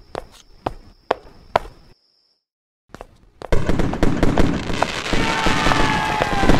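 Fireworks: from about three and a half seconds in, a loud, dense crackle of many bursts, with whistles falling in pitch. Before it come a few sharp clicks over a steady high tone, then a moment of silence.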